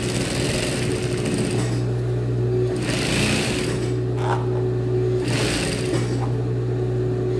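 Industrial straight-stitch sewing machine sewing a seam through trouser fabric, its motor humming steadily while the needle runs in short stretches with brief pauses.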